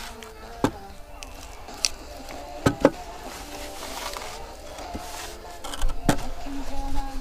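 Sand being scraped and levelled with a wooden screed board taped to an aluminium spirit level, with a few sharp knocks as the board is handled. The loudest knocks are a pair a little under three seconds in, and the scraping gets busier near the end.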